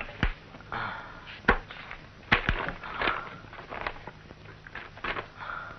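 Handling noise from a book of police mugshots being brought and leafed through: irregular light knocks and short papery rustles, about seven sharp ones.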